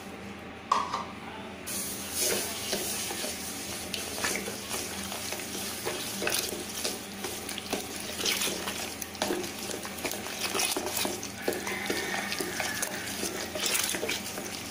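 Steel spoon stirring wet semolina mixed with curd and water in a stainless steel bowl: continuous wet squelching and scraping of the spoon against the bowl, starting about two seconds in.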